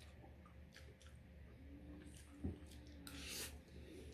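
A person eating pancit canton noodles: soft wet chewing and mouth sounds, a single knock about halfway through, and a short slurp of noodles near the end.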